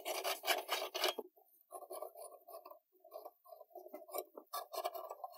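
Globe light bulbs being twisted out of a vanity light bar's sockets by a hand wrapped in a cloth: irregular, short rubbing and scraping of cloth and glass, with the bulb bases grating in their sockets.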